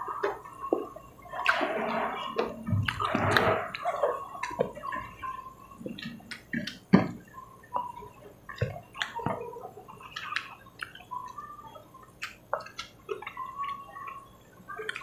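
Close-miked mukbang eating sounds: two people chewing chicken, broccoli and rice with wet, smacking mouth noises and many short clicks. The chewing is densest from about one and a half to four seconds in, and one sharp click about seven seconds in is the loudest.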